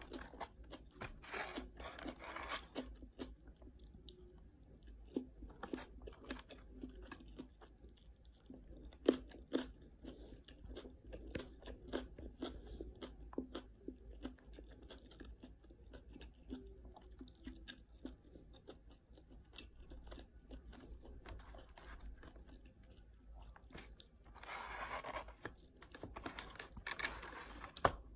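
Close-up chewing and crunching of kimchi cabbage, many short crunches spread through, with two longer, louder stretches of crunching, one near the start and one near the end.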